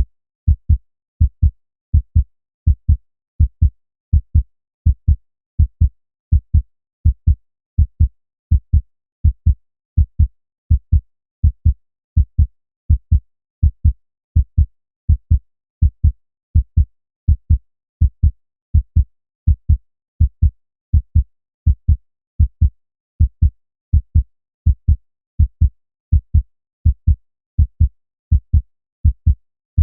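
Human heartbeat: a steady, regular lub-dub of deep double thumps, a little over one beat a second.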